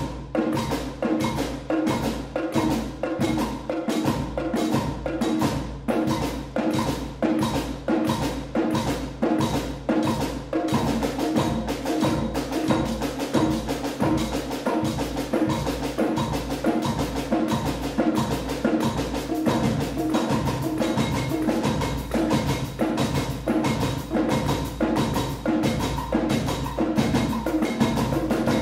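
Percussion ensemble playing unpitched instruments (snare drums, small drums, a tambourine and a drum kit) with sticks in a repeating minimalist pattern. The strokes come as a steady pulse that grows denser about ten seconds in.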